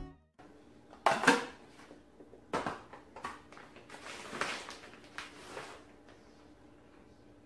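A plastic bag of shredded cheese rustling, with light clinks and knocks of glass meal-prep containers as cheese is sprinkled into them: a handful of short, separate handling sounds.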